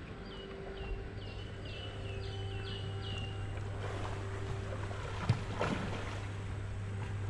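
Swimmers splashing through the water during a freestyle race, with one sharp knock about five seconds in. Over a steady low hum, a quick run of about seven high chirps, each falling in pitch, sounds in the first few seconds.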